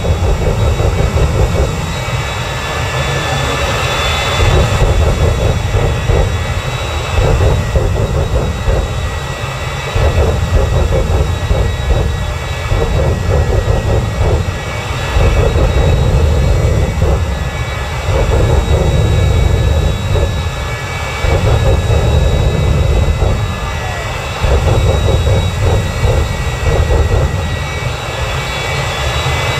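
Jet engine of a jet-powered dragster truck running hard: a steady high turbine whine over a deep rumble that swells and drops every few seconds.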